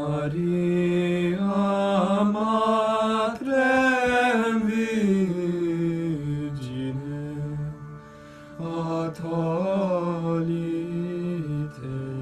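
Devotional chanting: a voice sings long, slow phrases with wavering ornaments over a steady drone. It pauses briefly about eight seconds in, then sings another phrase.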